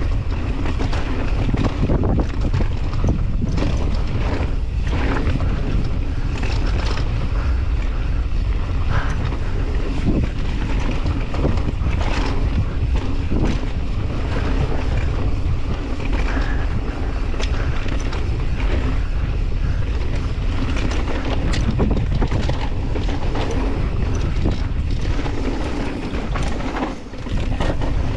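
A mountain bike descending a dirt downhill trail at speed: wind buffeting the camera microphone and tyres rumbling over the dirt, with frequent clicks and clatters from the bike over bumps. The level dips briefly near the end.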